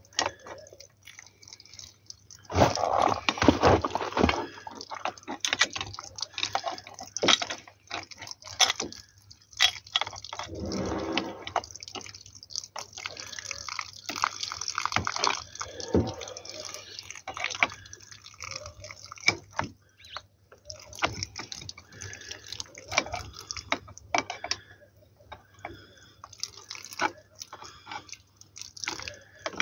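Water dripping and splashing from a leaking pipe joint under a brass garden tap, mixed with irregular clicks and metal clanks of wrenches gripping and turning the tap to tighten it. A louder noisy stretch comes about three seconds in.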